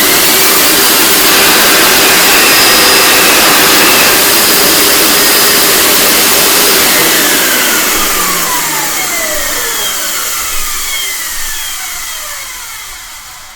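Motor of a 2002 Hoover SteamVac Silver carpet cleaner running loud and steady. About halfway through it is switched off and winds down, with a falling whine as it fades.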